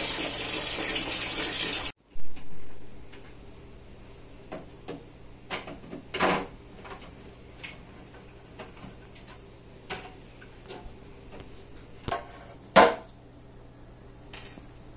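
Water running steadily, stopping abruptly about two seconds in. Then light clicks and knocks of plastic being handled on an RO water purifier's casing and filters, with a few louder clunks.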